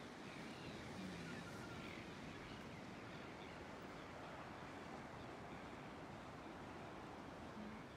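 Faint steady hiss of wind and distant surf, with a few faint bird chirps.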